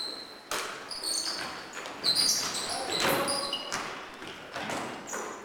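Basketball game on an indoor court: sneakers squeaking in short, high chirps and the ball bouncing, with distant players' voices.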